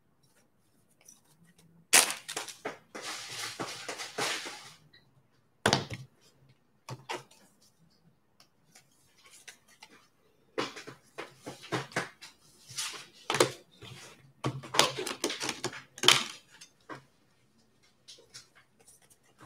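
Intermittent rustling, crinkling and knocks of trading-card packaging being handled and opened, in scattered bursts with short pauses between them.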